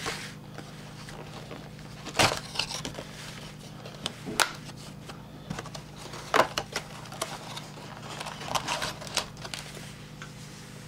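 Crinkling and crackling of packaging as a trading-card box is handled and opened, with three sharp clicks or taps about two seconds apart.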